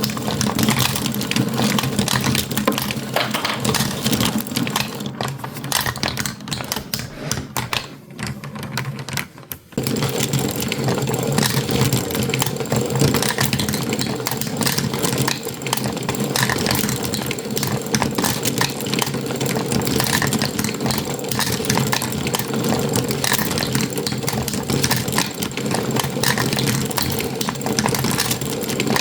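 Marble run toy: marbles clicking and rattling continuously along the track, over a steady mechanical hum. The sound thins out briefly around eight to ten seconds in, then picks up again.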